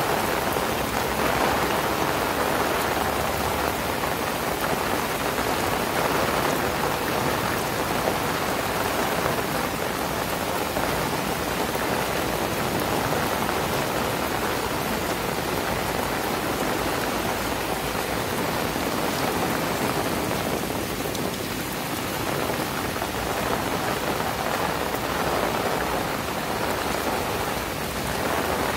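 Heavy rain falling steadily on wet grass and a park path, an even, unbroken rush of rainfall with no other sound standing out.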